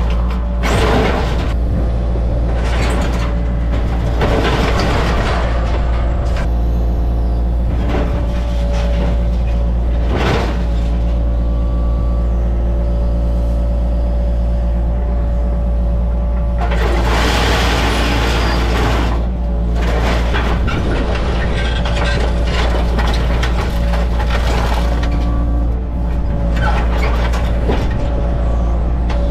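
Yanmar mini excavator's diesel engine running steadily while its bucket crushes and scrapes crumpled sheet-steel scrap, packing it into a scrap trailer. The metal crunching comes in irregular bursts, with the longest, loudest stretch of scraping a little past the middle.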